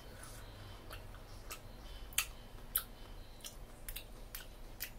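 A person chewing a fresh cherry with the mouth closed: faint, irregular short clicks, about one or two a second.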